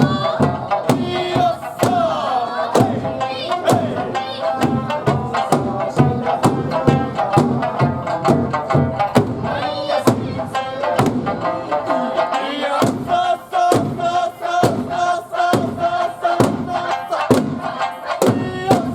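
Eisa drum dance: drums struck in quick, steady time over Okinawan folk music, with the dancers' shouted calls in chorus.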